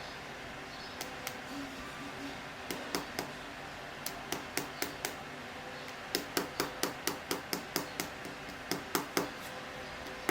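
Light, rapid taps of a pen tapping an optic into a CCTV lens's optical block, in short runs of clicks, about five a second at the busiest; tapped gently because a hard tap might crack the part.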